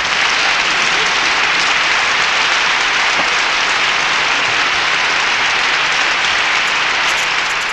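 Applause, loud and steady, beginning to fade near the end.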